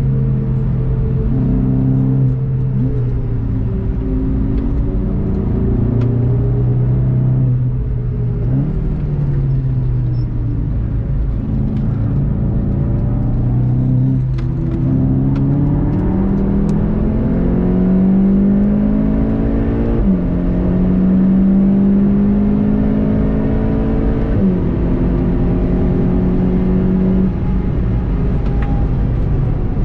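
Onboard sound of a VW Golf 7.5 GTI TCR's turbocharged 2.0-litre four-cylinder engine, heard inside the cabin: easing and slowing in traffic at first, then pulling hard with rising revs and two upshifts in the second half before settling at speed.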